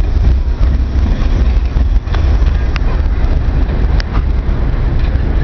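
R42 subway train pulling away along the track with a steady low rumble, with a few short high squeaks about two, three and four seconds in.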